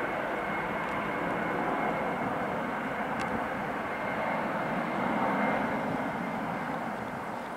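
Jet engines of an easyJet Airbus A320-family airliner running steadily as it rolls along the runway: an even rushing noise with a thin, high steady whine.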